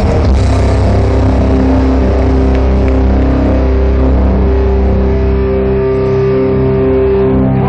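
Grindcore band playing live through a large PA, heard from within the crowd: loud distorted guitars and bass holding long droning notes.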